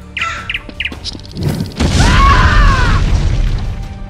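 Explosion sound effect for a toy grenade going off: a loud boom about a second and a half in that rumbles on for around two seconds, with curved ringing tones in it.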